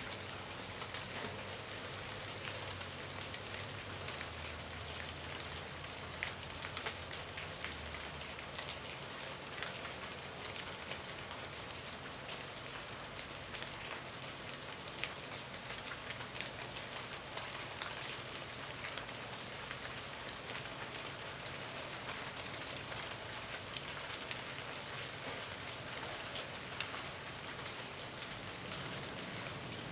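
Steady rain falling, with frequent sharp ticks of single drops striking close by.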